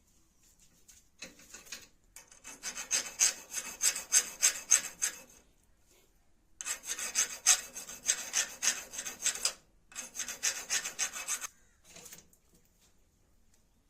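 A hand file or rasp scraping back and forth on a spear arrow in quick, even strokes. It comes in four runs separated by short pauses.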